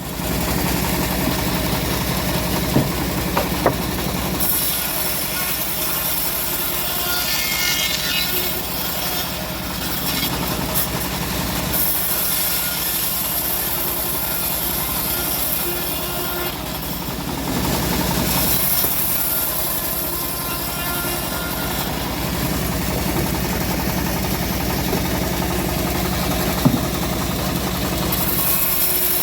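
Homemade engine-driven bandsaw mill running steadily while its blade cuts through an old teak log, the hiss of the cut rising and easing. A few sharp knocks, one about three seconds in and one near the end.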